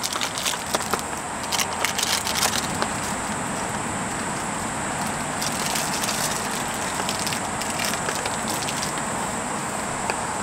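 Wood fire crackling, with sharp pops thickest in the first few seconds and thinning out later, over a steady hiss.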